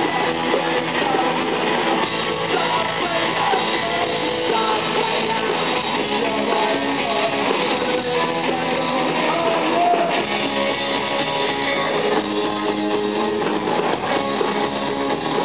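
A rock band playing live, with strummed guitars to the fore.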